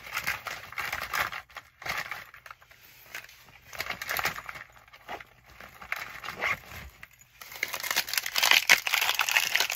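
Plastic packaging crinkling and rustling in irregular bursts as bagged supplies are handled and stuffed into a travel bag. The rustling becomes louder and continuous near the end.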